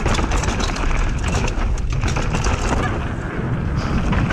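Mountain bike running fast down a dirt trail, heard from a helmet camera: a steady rush of wind over the microphone and tyre noise, with the bike clattering rapidly over bumps.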